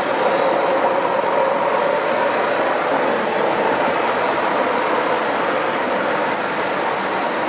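O gauge model freight train's wagons rolling past on the track, a steady rattling rumble.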